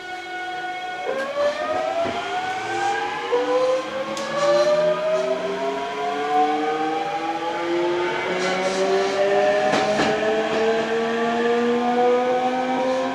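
Toshiba GTO-VVVF inverter and traction motors of a Hankyu 8000 series train accelerating: a held steady tone switches about a second in to several tones that climb steadily in pitch as the train gains speed. A few sharp clicks of wheels over rail joints are heard along the way.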